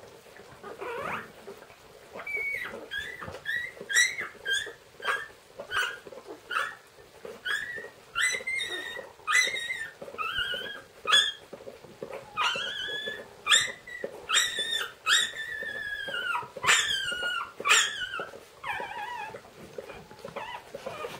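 Newborn golden retriever puppies squeaking and crying: short high-pitched whines repeated about once or twice a second, starting about two seconds in, with longer cries that rise and fall in pitch around the middle.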